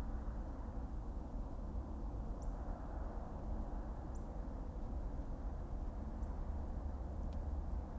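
Steady low rumble of a car driving slowly, heard from inside the cabin: engine and tyre noise, with a few faint, short high chirps.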